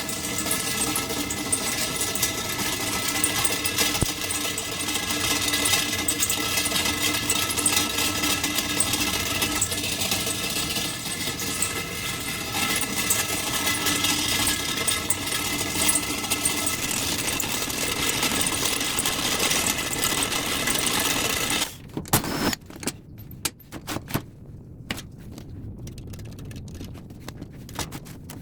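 Beverage fridge's compressor compartment running with a steady humming rattle, the strange noise coming from underneath the fridge. It stops suddenly about 21 seconds in, followed by scattered clicks and knocks.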